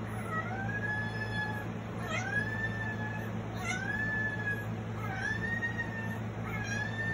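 A kitten meowing over and over, five high calls about a second and a half apart, played from a phone's speaker.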